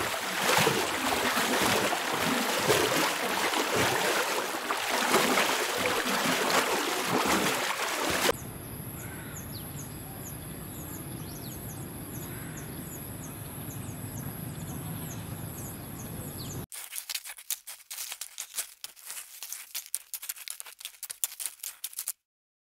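Water splashing and sloshing as an alligator moves in shallow water. This gives way to a quieter outdoor background with a steady high-pitched hum and faint chirps. Near the end comes a stretch of rapid dry crackling.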